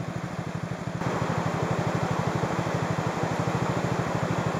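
Small single-cylinder engine of a Honda C90 motorcycle idling with an even, rapid putter, a little louder from about a second in, over a steady hiss.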